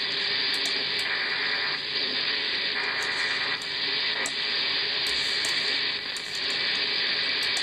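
Steady radio static hiss from an RTL-SDR receiver tuned between stations with no signal, the tuning moving across the band.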